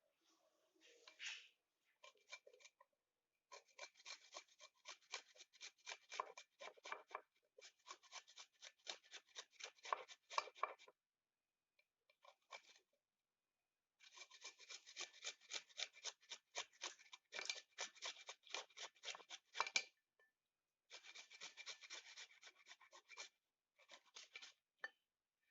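Quick repeated scraping or cutting strokes, about four to five a second, in runs of a few seconds with short pauses between them.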